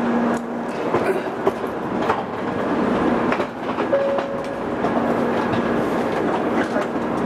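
Steady hum and hiss of a Shinkansen bullet train's interior, heard from its vestibule, with footsteps and small knocks as someone walks through. A brief steady tone sounds about four seconds in.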